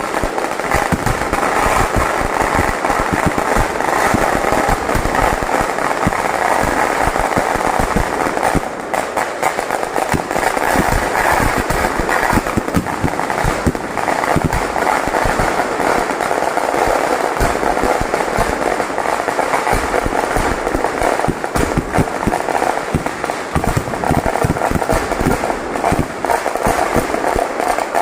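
Firecrackers in a Kerala temple fireworks display (vedikettu), bursting in rapid, unbroken succession as a continuous rattle of bangs.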